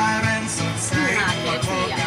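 Music: a song with a singing voice.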